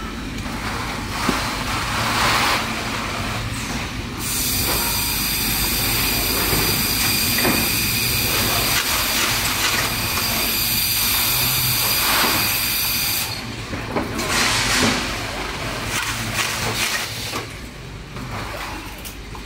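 Factory machinery running, with scattered clatter. A loud, steady hiss starts about four seconds in and cuts off suddenly some nine seconds later.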